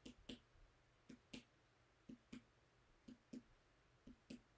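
Finger percussion of a bare abdomen: a fingertip tapping twice in quick succession on the middle finger of the other hand pressed flat on the belly, about one pair of taps a second, five pairs in all. The taps are the liver-span percussion, moving up the right midclavicular line from tympany toward the dull note at the liver's lower edge.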